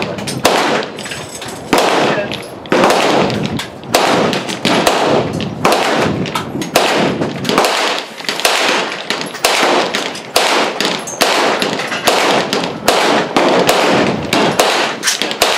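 Gunshots going off in quick, irregular succession along a shooting range's firing line, more than a dozen sharp reports, each with a short echoing tail.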